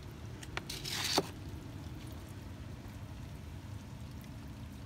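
Llama spitting: one short, forceful hiss of expelled breath about a second in, with a sharp click at its start and end.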